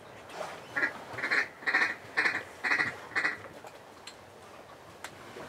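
A run of about six loud duck quacks, evenly spaced at about two a second, ending a little past the middle.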